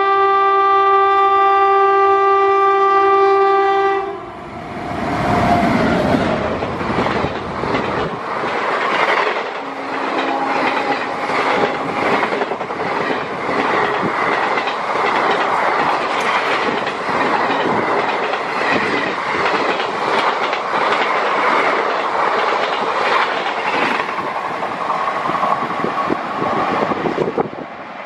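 Shaan-e-Bhopal Express passing at speed: its locomotive's horn sounds one long chord that stops about four seconds in, then the coaches rush past with a fast, steady clatter of wheels over the rail joints, easing off near the end.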